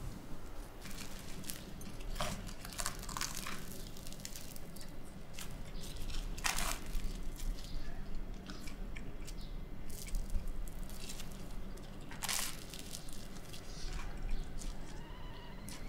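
Crunching bites into toast topped with fried egg and chewing, with several crisp crunches scattered through, the clearest about six and twelve seconds in, over a low steady hum.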